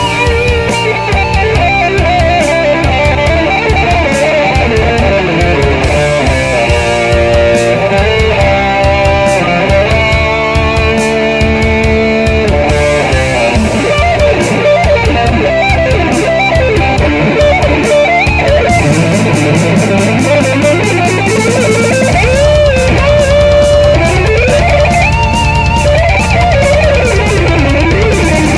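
Electric guitar solo in a rock song, the lead line bending and wavering in pitch over a full band backing with drums.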